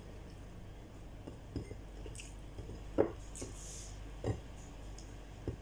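Eating by hand from a plate: quiet chewing and mouth sounds with a few short knocks or smacks, the loudest about three seconds in.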